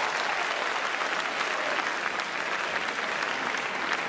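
Crowd of spectators in a sports hall applauding at the end of a badminton rally: steady clapping from many hands.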